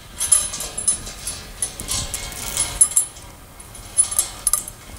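Steel chain rattling and clinking in irregular bursts as it is handled and hooked onto a metal bar, with sharp metal-on-metal clinks that ring briefly.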